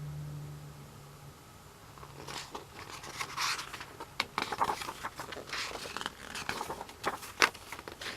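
Album packaging being handled, with irregular rustling, crinkling and scraping from about two seconds in. A low steady hum fades out in the first second.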